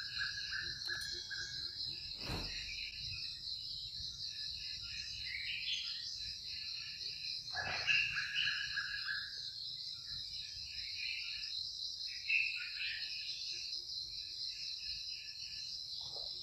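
Steady high-pitched insect chorus, crickets or cicadas, with many short chirping calls over it. Two brief sharp sounds cut through, about two and eight seconds in, the second the loudest.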